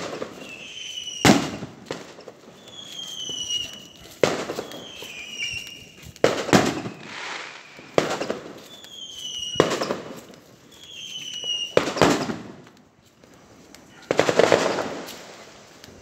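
New Year fireworks going off in the distance: a string of sharp bangs a second or two apart, with rumbling swells and short falling whistles between them.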